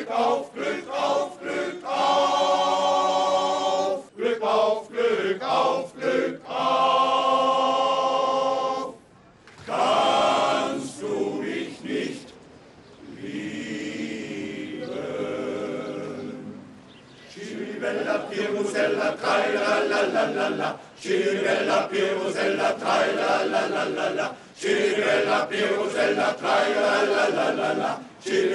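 Male miners' choir singing, long held phrases with short breaks between them, and a quieter stretch about halfway through.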